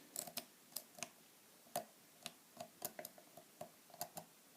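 Lock-pick rake working the pins of a four-pin re-keyable Master padlock, giving faint, irregular metallic clicks, roughly three a second, as the rake is scrubbed in and out to set the pins.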